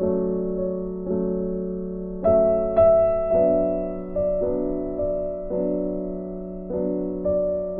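Background piano music: slow, soft chords, each struck and left to fade, about one a second.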